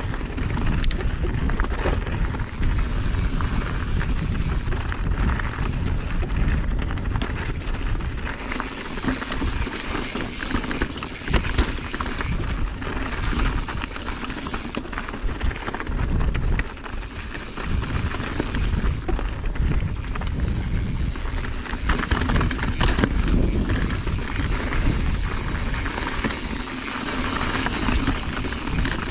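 Mountain bike riding over a rocky, gravelly trail: tyres crunching and the bike rattling, with many small clicks and knocks, under a steady rumble of wind buffeting the microphone.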